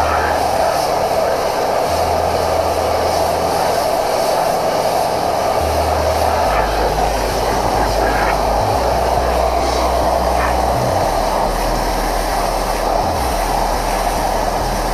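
Electric pressure washer running, its jet spraying a motorcycle's drive chain and rear sprocket to blast off grime: a steady spray hiss over the washer motor's hum, which shifts in pitch a few times.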